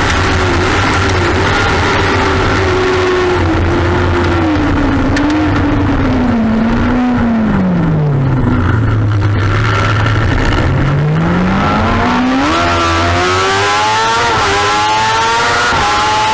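Kawasaki ZX-6R inline-four sport bike engine heard from onboard, its revs falling away as it slows through the first half. It then pulls hard, the pitch climbing steadily with a quick upshift about two seconds before the end and another right at the end.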